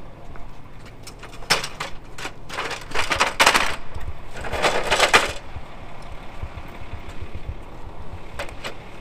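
Fire-service ground ladder clattering and scraping as it is handled: a run of rattling knocks and scrapes for a few seconds in the middle, over a low steady rumble.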